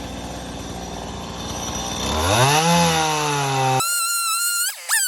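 Stihl MS170 two-stroke chainsaw idling steadily, then revved up about two seconds in and held at high speed. Near the end the engine sound cuts off abruptly and a high, wavering tone takes over.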